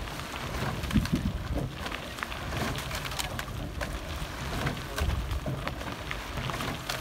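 Oar blades of a rowing eight splashing and churning the water as the crew rows past at race pace, a steady watery hiss with scattered sharp clicks.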